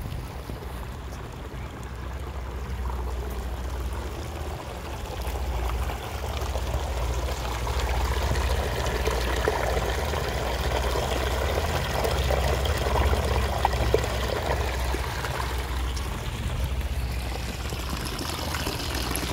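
Running water pouring and trickling steadily, getting louder about six seconds in, over a low rumble.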